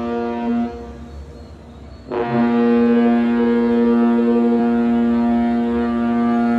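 Cruise ship's horn: one blast ends about half a second in, then a second long, steady blast starts about two seconds in and holds.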